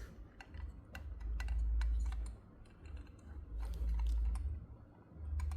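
Rubber-tyred wheels of a heavy diecast model Hummer H2 rolled back and forth on a tabletop: a low rumble that swells three times, with scattered light clicks.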